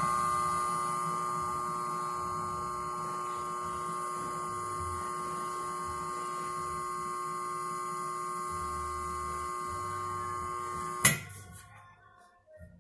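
Hat steamer blowing a steady jet of steam, a hiss with several steady whistling tones, softening a felt hat brim for shaping. It cuts off abruptly with a sharp knock about 11 seconds in.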